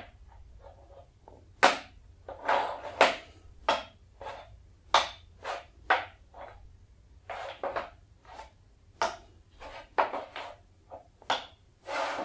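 Colored blocks being picked up, stacked and set down on a board, making a string of irregular knocks and clacks with a few short scraping slides.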